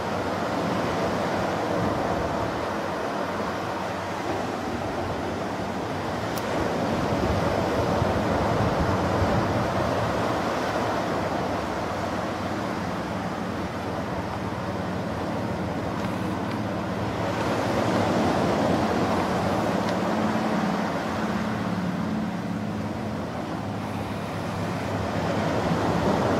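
Atlantic surf breaking on the beach: a steady rush of waves that swells and ebbs slowly, peaking every eight to ten seconds.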